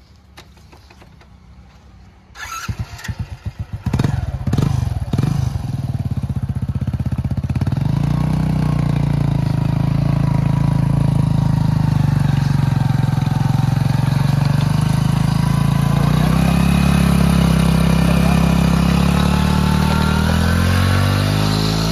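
A Hero Splendor motorcycle's single-cylinder four-stroke engine starts about two seconds in and revs unevenly, then runs steadily and loudly under load as its rear wheel spins the flywheel of a Fieldmarshal Lister-type diesel engine to start it. The engine pitch rises near the end.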